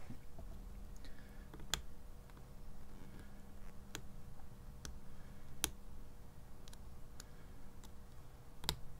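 Lock pick and tension wrench working the pins of a BEST SFIC padlock core, giving faint, irregular clicks as pins set, with a sharper click near the end.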